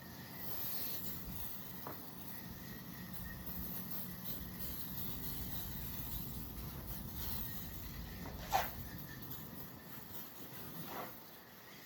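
Aerosol can of foam coil cleaner spraying onto an air conditioning condenser coil, a steady hiss. A brief sharp sound about two-thirds of the way in.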